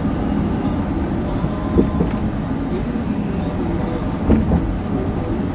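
Steady road and engine noise of a car driving at speed, heard from inside the car, with a few short knocks about two seconds in and again past four seconds.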